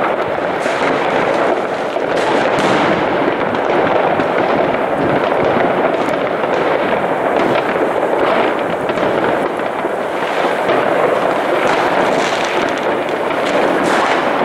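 Many fireworks rockets and firecrackers going off across a city at once: a continuous dense crackle and popping with scattered sharper bangs.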